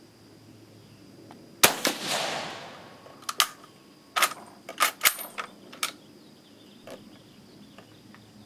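A single shot from a Vetterli 1870/87/15 rifle converted to 6.5mm Carcano, firing a reduced cast-bullet load, about a second and a half in, with its echo trailing off. From about three seconds in, a run of metallic clicks and clacks as the rough bolt action is worked to extract and close.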